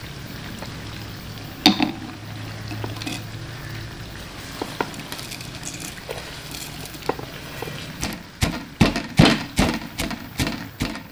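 Whole spices (green cardamom, black cumin, mace, nutmeg) tipped from a steel plate into a wooden mortar with light rattling ticks, then pounded with a pestle: a run of knocks, about two or three a second, starting about eight seconds in, as the spices are coarsely crushed.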